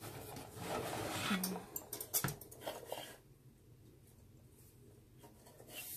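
Backer board rubbing and scraping against a wooden shadow box frame as it is forced into place, catching on a photo corner, with a sharp click about two seconds in.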